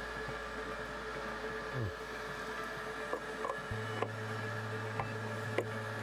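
Steady hum of a vacuum holding negative pressure in a poly tank, with a few light clicks and taps in the second half as a valve is turned into the tank's bottom opening by hand.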